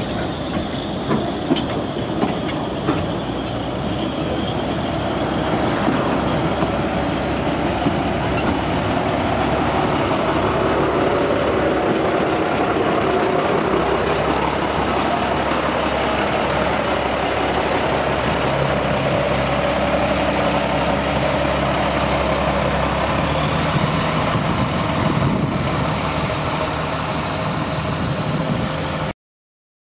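Welsh Highland Railway narrow-gauge train running past, its wheels clicking over the rail joints at first, then a steady rumble with a faint low hum. The sound cuts off suddenly near the end.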